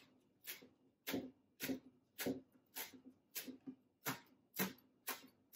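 Chef's knife chopping flat-leaf parsley on a plastic cutting board: the blade knocks on the board in a steady rhythm of just under two chops a second.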